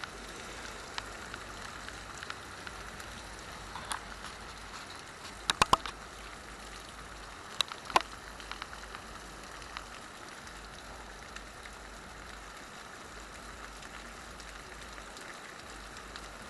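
Heavy rain pouring steadily in a thunderstorm, with a few sharp drips or taps standing out about four, five and a half and eight seconds in.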